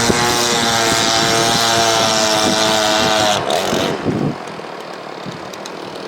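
Gas-powered two-stroke chainsaw running at high revs underwater, its pitch steady. About three and a half seconds in, the pitch sags and then the engine sound drops away, leaving quieter splashy background noise.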